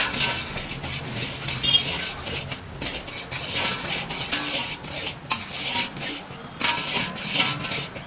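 Long-handled metal spatula scraping and stirring a crumbly gram-flour-and-ghee mixture around a large metal kadai: repeated scraping strokes with clinks of metal on metal. The besan is being roasted in ghee for mohanthal.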